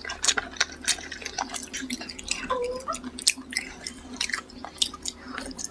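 Close-miked wet chewing and mouth sounds of someone eating a thick bite of food, with many quick, sharp smacks and squishes.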